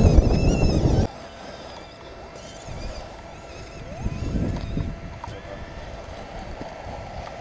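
Wind buffeting the microphone, a dense rumbling noise that cuts off abruptly about a second in. Quieter open-air sound follows, with a soft low rustle around four seconds in.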